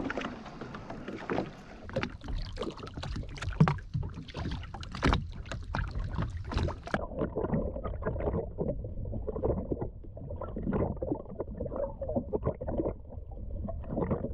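Water slapping and sloshing against a small boat's hull, with a few sharp knocks. About seven seconds in, the sound turns muffled and dull: water churning heard from underwater.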